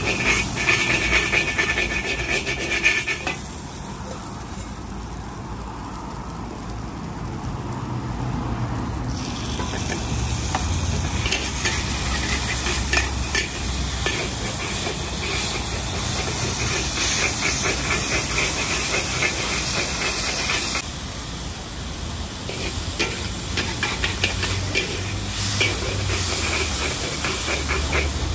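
Noodles being stir-fried in a wok: steady sizzling with the scrape and clatter of a metal spatula against the pan. The sound changes abruptly a few times, at about 3, 9 and 21 seconds.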